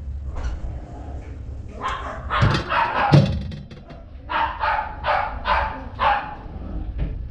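A dog barking: a few barks a couple of seconds in, then a quick run of about five barks in the second half.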